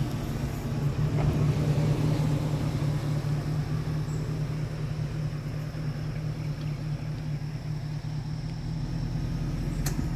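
Vehicle engine idling steadily, a low hum throughout, with a single sharp click near the end.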